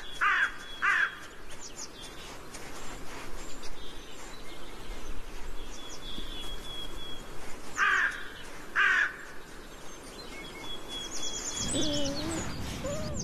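Rock partridge calling: harsh rasping notes in two pairs, one pair just after the start and one about eight seconds in, with thin high whistles between. Near the end, low wavering whining notes begin.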